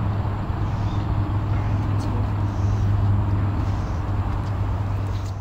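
Steady low motor rumble with a constant low hum.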